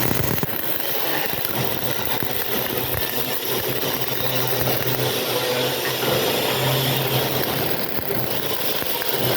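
Electric arc welding: a continuous crackling hiss over a steady low electrical hum from the welding machine.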